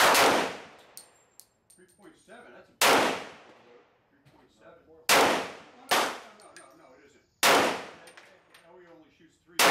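Six pistol shots fired one at a time at an uneven pace, two of them close together about midway, each a sharp crack with a short echoing tail.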